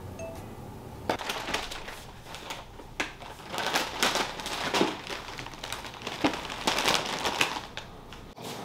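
Crinkling and rustling of a shopping bag and a foil chip bag being handled as groceries are unpacked, in irregular bursts starting about a second in.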